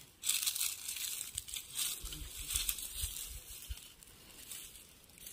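Slow footsteps crunching and rustling through dry leaves and twigs, with soft thuds as the feet come down in the middle of the stretch.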